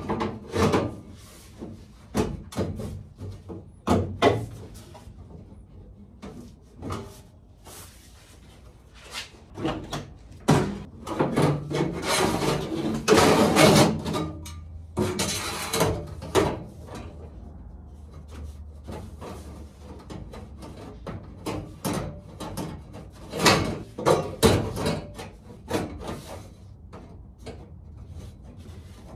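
A formed 16-gauge steel floor patch panel being shifted and test-fitted into a car's floor pan by hand: sheet metal scraping and rubbing against metal, with scattered knocks and clunks. The longest scraping comes about twelve seconds in and again near the end.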